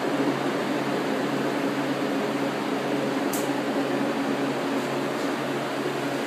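Draft beer refrigeration equipment running: a steady electrical hum under the even rush of a fan. A single short, high tick sounds about halfway through.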